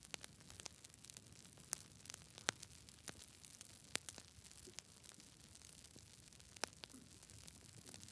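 Campfire crackling: irregular sharp pops and snaps, a few louder than the rest, over a faint steady hiss.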